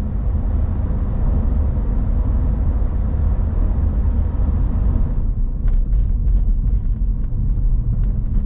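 A steady low rumble with a fainter hiss over it. The hiss drops away about five seconds in, and a few faint clicks follow.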